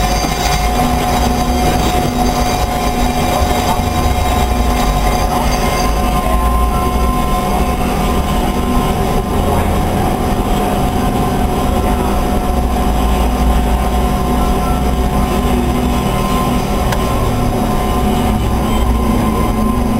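Amada HFA 400 CNC horizontal bandsaw running: steady machine noise with a low rumble, a steady hum and a steady whine. The higher hiss fades about six seconds in.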